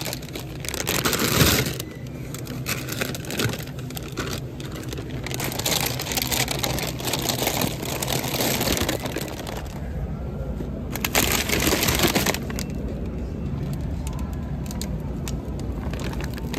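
Plastic bags of hard-boiled eggs crinkling and rustling as they are handled, in irregular bursts, over a steady low background hum.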